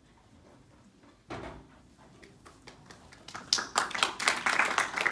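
Audience clapping for a speaker who has just been introduced: a few scattered claps at first, building to dense applause in the last couple of seconds. A single thump comes about a second in.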